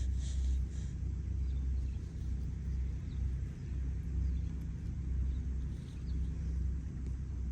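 A low, uneven outdoor rumble.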